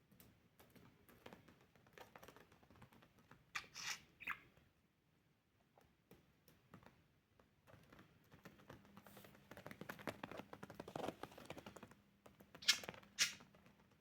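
A budgie giving short sharp chirps, two near the start and two louder ones near the end, with soft crunching and scratching in between.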